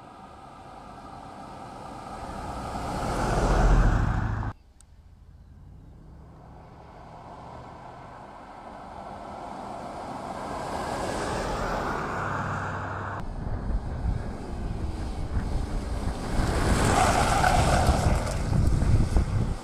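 2014 Range Rover Sport driving past: engine and tyre noise swells to a loud pass-by about four seconds in and breaks off suddenly. Further drive-by noise builds again, and near the end a loud rumble of tyres with gusting wind on the microphone.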